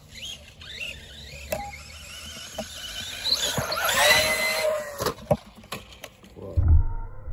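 Electric motor of an Arrma Big Rock RC monster truck whining up and down in pitch as it is throttled, loudest about four seconds in, with sharp clacks as the truck hits the ground and a heavy thump near the end.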